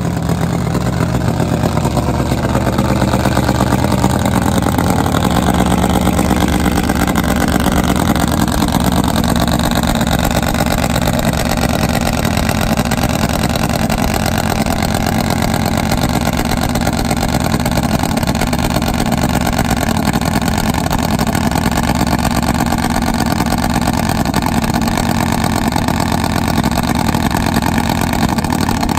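Nitromethane-fuelled Harley-Davidson V-twin drag bike engine idling loudly and steadily at the start line, with a second drag bike's engine running alongside it.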